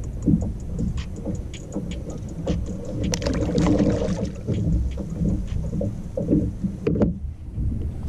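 Wind buffeting the microphone as a steady low rumble, with small ticks and clicks from handling throughout and a brief rustle about three seconds in.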